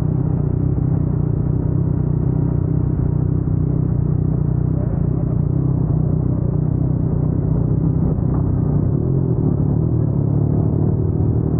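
Yamaha MT-09 three-cylinder crossplane engine running at steady revs through an Akrapovic full-system exhaust, a deep even rumble with no revving.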